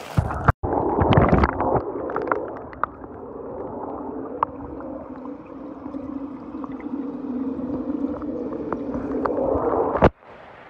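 A phone microphone dunked into a fish tank: splashing and gurgling as it goes under, then a muffled, steady low hum with scattered clicks heard through the water, ending with a sharp knock as it comes back out.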